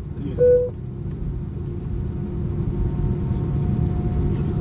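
Steady low rumble in the cabin of an Airbus A319 with its IAE V2500 engines running. A short electronic beep sounds about half a second in.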